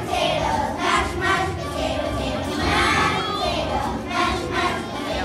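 Third-grade children's choir singing together.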